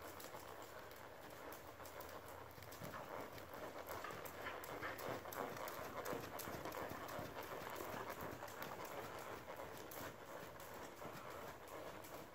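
Hoofbeats of a ridden horse trotting on soft sand arena footing: a steady, rhythmic run of muffled thuds.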